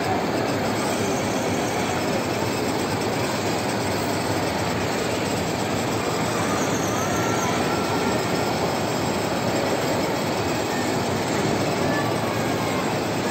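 Battery-powered ride-on toy car rolling steadily across a tiled floor: a continuous rumble of its hard plastic wheels and electric drive.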